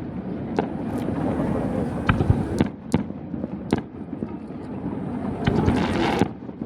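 Aerial fireworks bursting: a string of sharp bangs at irregular intervals, some in quick succession and a denser run of crackling bursts near the end, over a steady low rumble.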